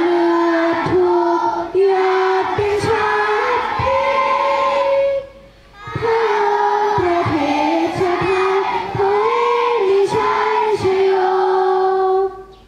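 Large group of schoolchildren and teachers singing together in unison, in two long phrases with a short break about five seconds in; the last note is held and then stops just before the end.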